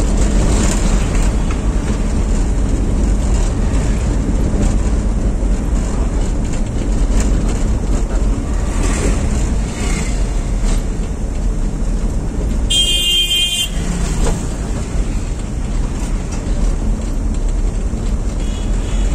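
Car driving in town traffic heard from inside the cabin: a steady low engine and road rumble, with a high-pitched vehicle horn honking once, for under a second, about two-thirds of the way through.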